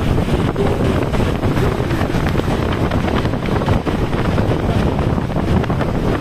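Steady wind rush buffeting a phone microphone held at an open car window, over the road noise of a car driving through a concrete road tunnel.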